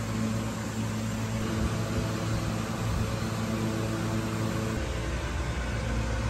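Steady mechanical hum with an even hiss: the running pumps and air handling of an indoor aquarium hall. A deeper low rumble joins about three-quarters of the way through.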